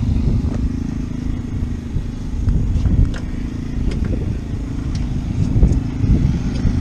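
Motorcycle engine running at a steady pitch, with a few small clicks over it.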